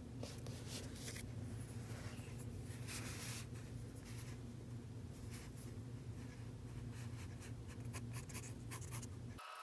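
Mechanical pencil lead scratching on sketchbook paper in short, irregular strokes as a drawing is sketched, over a steady low hum.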